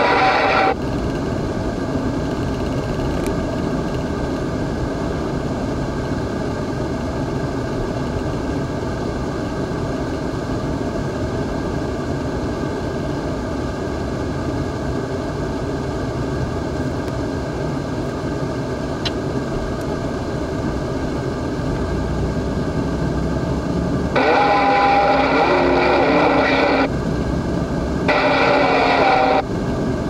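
Steady engine and tyre noise of a car driving on a highway, heard from inside the car. About 24 seconds in, two louder stretches of a radio-like sound come over it.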